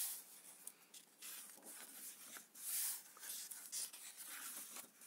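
Soft paper rustling and handling as the pages of an old book, its pages tearing, are turned and shifted. The rustles come in short bursts, the loudest about three seconds in.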